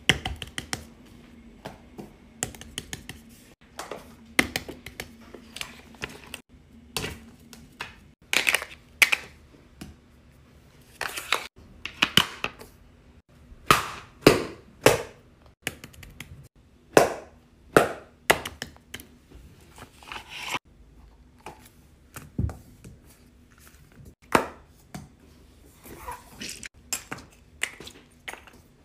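Fidget toys being handled: a long run of irregular clicks, snaps, taps and crinkles, some single and some in quick clusters, with short pauses between.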